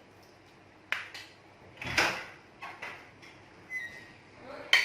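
A handful of short knocks and scrapes, the loudest about two seconds in.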